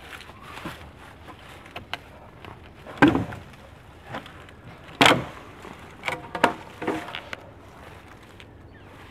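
A few strokes of a wire cable survival saw through a dead tree limb, then two loud sharp cracks about three and five seconds in as the nearly cut-through limb breaks, the second the loudest, followed by a cluster of smaller snaps and knocks.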